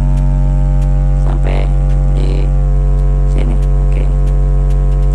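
A Rogers SW-12 12-inch subwoofer, driven by a Nakamichi NK-SD600.1i monoblock amplifier, plays a steady 60 Hz sine-wave test tone from a signal generator. The amplifier's bass boost is set just short of clipping.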